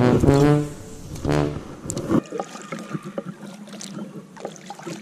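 Background music with a few held notes, cutting off about two seconds in. Then a kayak paddle stroking through calm water: light splashes and drips, with small irregular knocks.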